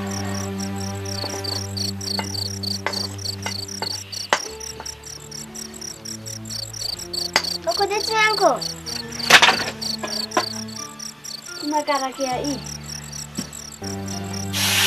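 Crickets chirping in a rapid, evenly repeated pulse, with a few sharp knocks and clicks over a low steady hum.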